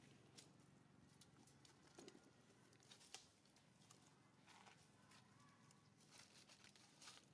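Near silence: faint outdoor ambience with a scatter of soft, brief clicks and rustles.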